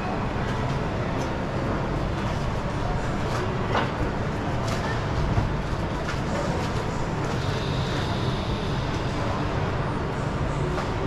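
Steady background din of a busy indoor market hall, with a low rumble and a few sharp clicks and knocks from the stalls.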